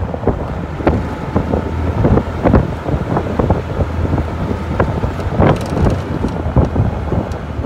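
Wind buffeting the microphone: a steady low rumble broken by irregular gusts.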